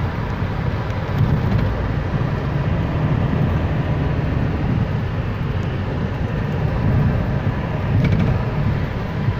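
Steady low rumble and hiss of a moving vehicle, heard from inside it.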